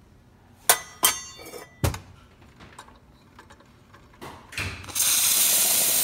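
A few sharp metallic clinks and knocks, then about five seconds in the steam valve of a Zacconi lever espresso machine is opened and the wand blows a loud, steady hiss of steam: nice strong steam, a sign the boiler is holding good pressure.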